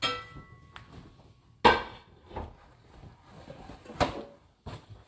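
A few sharp knocks and clinks at a stainless-steel kitchen sink as wet hands are shaken off and a paper towel is pulled. The first knock has a brief metallic ring, the loudest comes about a second and a half in, and another sharp one about four seconds in as the paper towel is taken.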